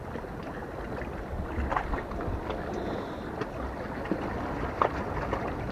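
Wind rumbling on the microphone and seawater washing against shoreline rocks, with a few faint clicks.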